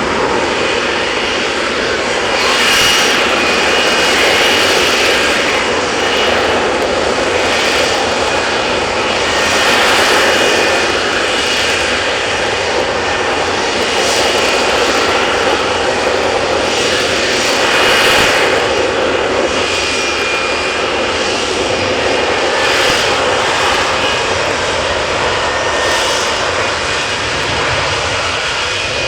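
Lockheed Martin F-35B Lightning II's Pratt & Whitney F135 jet engine running loud and steady: a broad jet rush with a faint high whine on top, swelling and easing several times.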